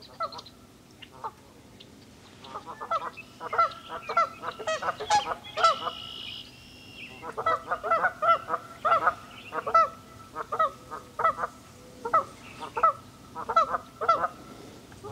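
Geese honking, a string of short repeated calls about two a second, with a brief pause near the middle.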